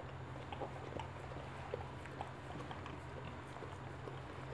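Boxer dam licking and mouthing her newborn puppy: a run of small wet clicks and smacks. A steady low hum runs underneath.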